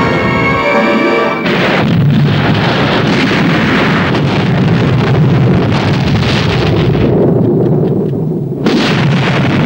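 Film soundtrack: orchestral score that is cut off about a second and a half in by a sudden loud explosion, its rumble running on for several seconds. A second blast hits near the end.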